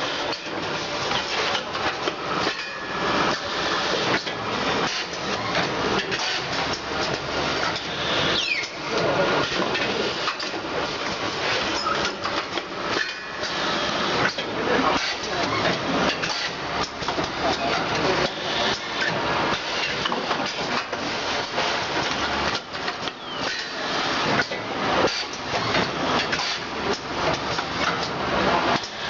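Automatic vacuum packaging machine running, a continuous busy clatter of rapid irregular knocks.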